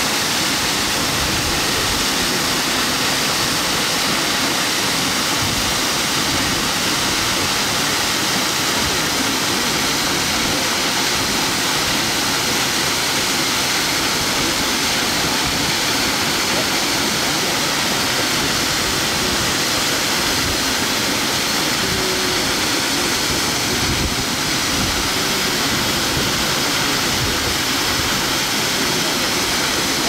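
Minoh Falls pouring down a rock face: a loud, steady rush of falling water that does not change in level.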